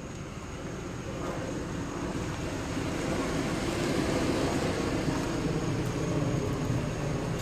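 A car engine running steadily with an even low pulsing, growing slightly louder over the first few seconds.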